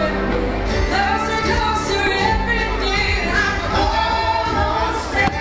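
Fireworks show soundtrack played loud over park loudspeakers: music with sung vocals and long held notes.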